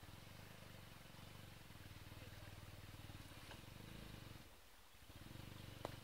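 Faint low hum of an engine running. It fades out about four and a half seconds in and comes back near the end, with a sharp click just before it stops.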